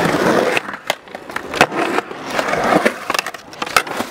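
Skateboard wheels rolling over rough concrete, with several sharp clacks of the board through the roll.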